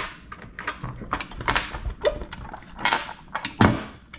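Small metal clicks and taps as nuts and washers are handled and threaded by hand onto the bolts of a steel motorcycle luggage rack bracket, with a louder knock about three and a half seconds in.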